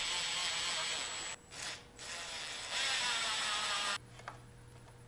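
Cordless drill-driver running in several bursts, driving a screw into the board, for about four seconds, then stopping.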